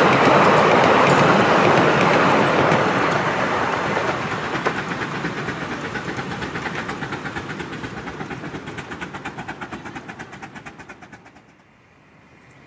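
A 10¼-inch-gauge miniature steam train and its open passenger carriages running away along the track, with a fast, even rhythmic clicking from the wheels on the rails. The sound fades steadily and cuts off abruptly near the end.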